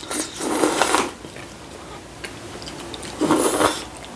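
A person slurping kalguksu noodles from a bowl: one long hissing slurp through the first second, and a shorter one a little after three seconds in, with faint chewing clicks between.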